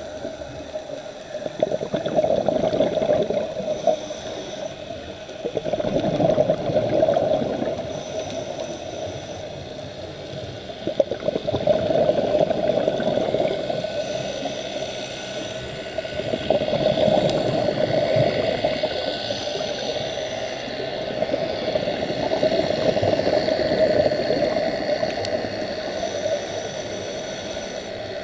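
Scuba regulator breathing, heard underwater: about every five seconds a loud rush of exhaled bubbles, with a thin hiss of the next inhalation between them.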